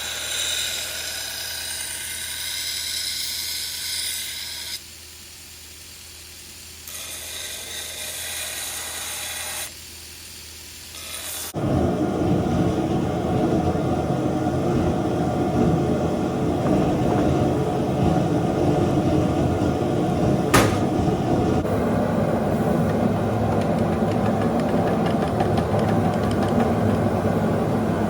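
Electric shop tools running in several short cut-together stretches: first a hissing grind, then, about a third of the way in, a louder steady motor running, with one sharp click partway through.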